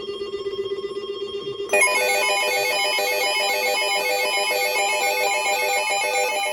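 Emergency Alert System SAME header: harsh digital data tones warbling rapidly between a low and a high pitch, starting abruptly about two seconds in after a quieter steady hum. The data burst encodes the special marine warning ahead of the spoken message.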